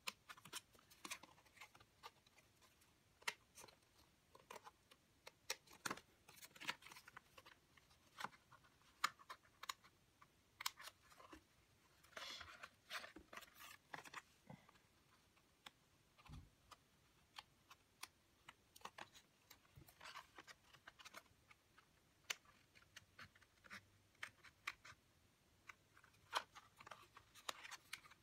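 Small sharp scissors snipping paper in faint, irregular clips, with a brief rustle of paper about twelve seconds in.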